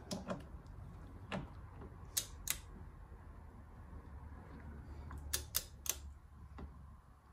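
Click-type torque wrench tightening camber-plate mounting nuts to 24 newton meters: a string of sharp metallic clicks, a pair about two seconds in and a quick run of three a little after five seconds.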